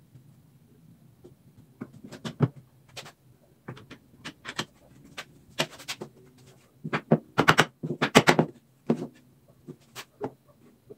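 Irregular knocks, taps and clatter of wood and tools being handled, with a quick run of louder knocks about seven seconds in.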